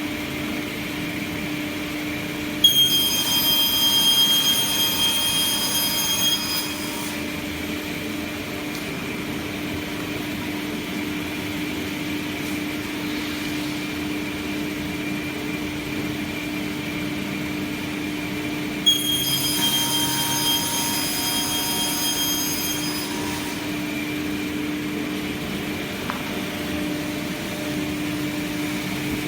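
Sliding table panel saw running with a steady hum, its blade giving a high-pitched whine twice, each for about four seconds, as it cuts through board panels.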